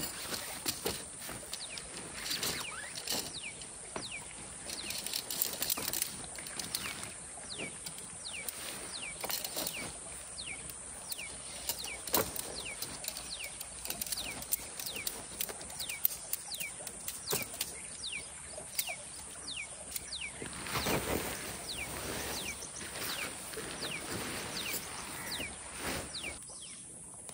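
Tent fabric and poles being handled while a tent is pitched: rustling, flapping and scattered knocks, louder about three quarters of the way through. A bird repeats short falling chirps, over a steady high hiss.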